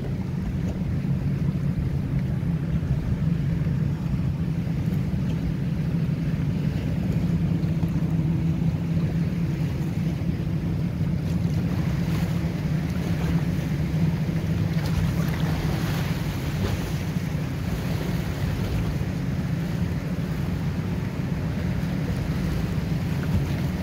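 Steady low drone of motorboat engines as a line of powerboats cruises past, over choppy water and wind buffeting the microphone.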